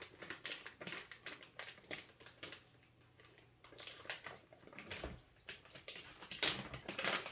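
Plastic snack pouch crinkling as it is handled and cut open with scissors: a run of small crackles and snips, louder crackling near the end as the bag is pulled open.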